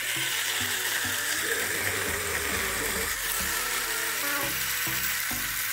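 Xiaomi Mijia Pinlo portable blender's 70-watt motor running steadily, its blades churning diced tomatoes with no water into a purée.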